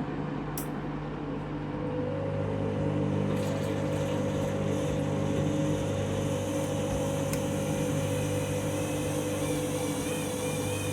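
Washing machine at the end of its main wash, running into the intermediate spin: a steady motor hum with several held tones that grows louder about two seconds in as the drum picks up.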